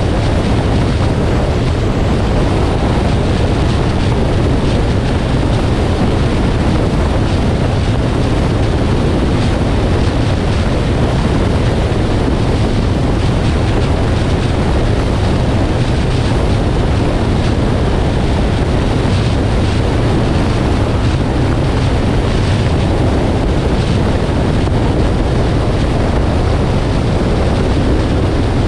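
Steady road and wind noise from a 2018 Nissan Armada driving at speed: a loud, even rumble and rush with a heavy low end and no changes.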